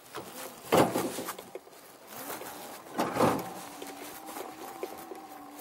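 Battery-electric farm transport cart driving across a dirt yard: a faint electric motor whine with tyre noise on the ground, and two louder rough rushes of noise about a second and three seconds in.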